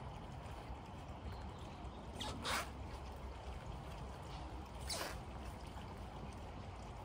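A spade blade driven into lawn turf and soil: two short strokes, about two and a half seconds apart, over a steady outdoor hiss.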